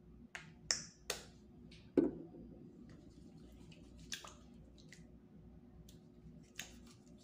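A small hand-sanitizer bottle being handled: a few quick clicks and short spritzes in the first second and a half, then a dull knock about two seconds in. Faint rubbing of hands follows, with two more small clicks.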